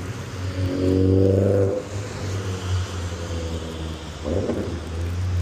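A steady, low droning motor hum with a buzzy, pitched tone, loudest about a second in and then holding on more quietly.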